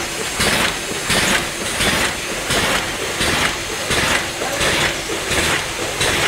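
Vertical form-fill-seal packing machine running at high speed: a steady mechanical din with a sharp hiss repeating evenly about twice a second as it cycles.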